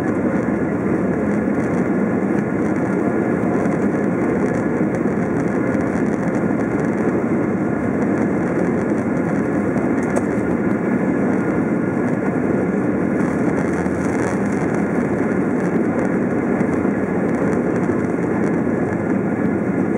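Steady jet engine and cabin noise inside a Boeing 767-400ER, heard from a window seat beside its General Electric CF6-80C2 turbofan as the airliner rolls along the ground at steady power. An even hum and rush with no rise in pitch or level.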